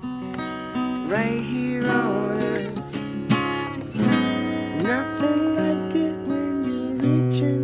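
Acoustic guitar music: a steel-string acoustic guitar strummed and picked, with a sliding melody line rising and falling over the chords.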